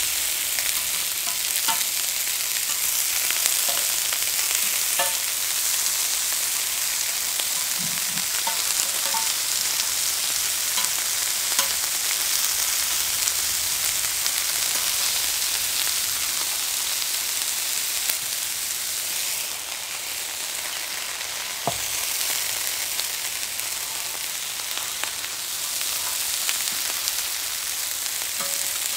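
Chicken drumsticks frying on a cast-iron cauldron-lid griddle: a steady high sizzling hiss, with occasional light clicks of metal tongs on the lid as the pieces are turned.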